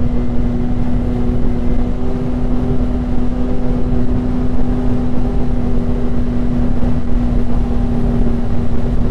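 Snowmobile engine running at a steady cruising speed: one unchanging engine note over a low rumble, with no revving or change in pitch.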